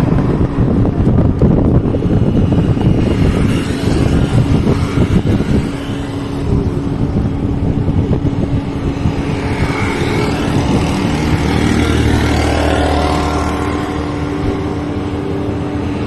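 Road traffic with a steady engine hum, and wind buffeting the microphone over the first several seconds.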